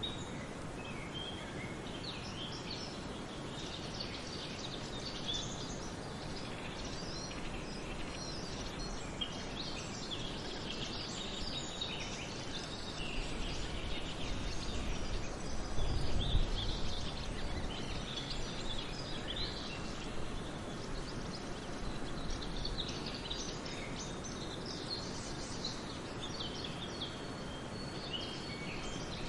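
Several forest songbirds singing and chirping, overlapping calls and trills over a steady outdoor background hiss. A brief low rumble comes about halfway through.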